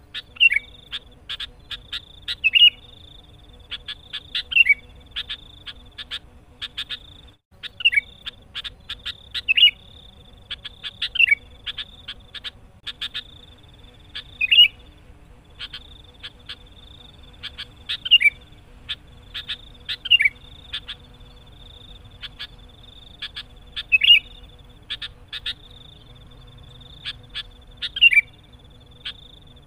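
Sooty-headed bulbul (kutilang) calling energetically: a loud falling note about every two seconds, with quick chattering chips in between. It is the lively challenging song used to lure and provoke rival bulbuls.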